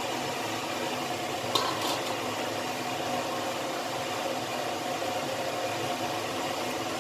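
Chicken wings, potatoes and carrots simmering in sauce in a wok, a steady bubbling hiss over a low steady hum. About one and a half seconds in, two short metal clinks as a stainless steel lid is set on the wok.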